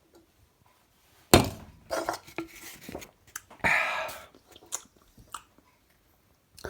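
A person sipping beer from a glass: a sudden knock about a second in, then several short slurping, swallowing and mouth sounds.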